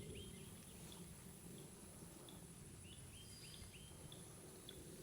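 Quiet outdoor ambience with a small bird calling: a quick run of about four short chirps just at the start, and another about three seconds in, with a few single high peeps between them.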